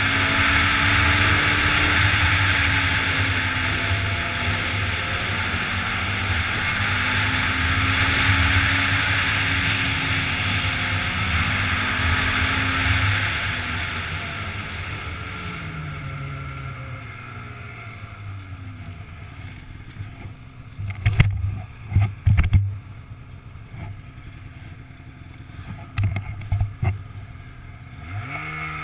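Snowmobile engine running at trail speed, its pitch wandering up and down over the hiss of the track and wind, then dropping off about halfway through as the sled slows to a low, quieter running. A few sharp knocks sound in the later part, and the engine revs up again right at the end.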